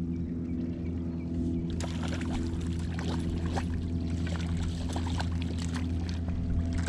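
A hooked cisco splashing and thrashing at the water's surface beside the boat in many short quick splashes from about two seconds in, over the steady drone of the boat's motor running.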